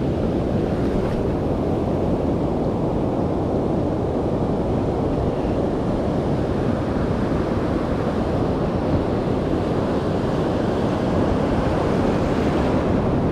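Steady rush of surf washing in over a sandy beach, with wind buffeting the microphone.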